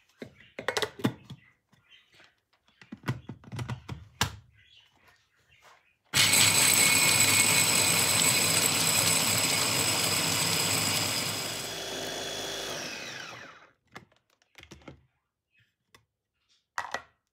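Electric mini chopper with a glass bowl grinding roasted pistachios into a coarse powder, the first stage of making pistachio paste. Its motor starts with the nuts rattling about six seconds in, runs loud and steady, drops lower about a second before it spins down and stops. Light clinks of the glass lid and motor unit being fitted come before it, and a knock comes near the end.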